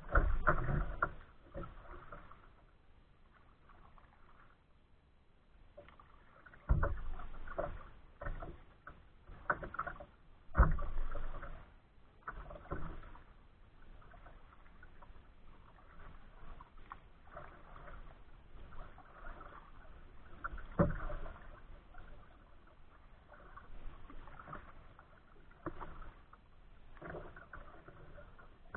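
Choppy water lapping and splashing against a kayak's hull, with several louder, irregular slaps of waves against the bow a few seconds apart.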